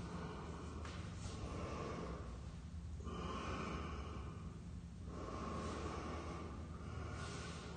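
A man breathing heavily through the nose while moving through yoga poses. Long, noisy breaths alternate about every two seconds.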